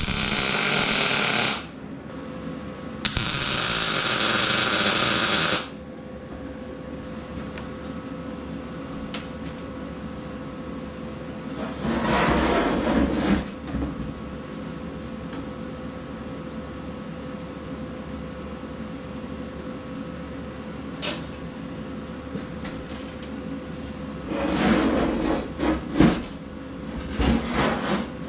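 Vulcan OmniPro 220 welder striking arcs to tack steel: two bursts of arc crackle and hiss in the first six seconds, the second longer. A faint steady hum runs between them, and two more rougher noisy stretches come about twelve seconds in and near the end.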